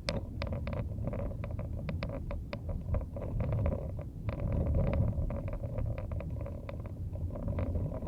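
A car driving through a blizzard, heard from inside the cabin: a steady low rumble of road, engine and wind, with many irregular sharp ticks and clicks throughout.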